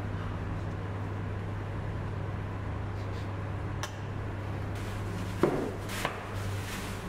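Coilover shock absorbers and their plastic wrapping being handled: a sharp knock a little over five seconds in and a lighter one about half a second later, with plastic rustling as a coilover is pulled from its packaging, over a steady low hum.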